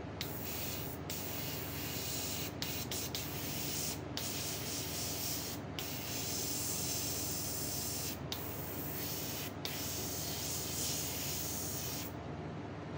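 Airbrush spraying paint onto a lure in a steady hiss, cut off for an instant several times and stopping about twelve seconds in. A steady low hum runs underneath.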